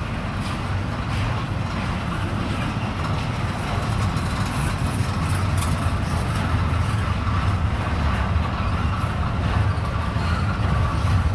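Double-stack intermodal freight cars of a CSX train rolling past: a steady low rumble of steel wheels on rail, with a few sharp clicks, growing slightly louder.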